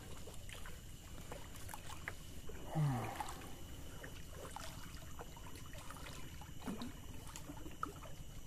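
Water trickling and lapping around a small boat, with scattered light knocks and drips. A short low hum of a voice comes about three seconds in.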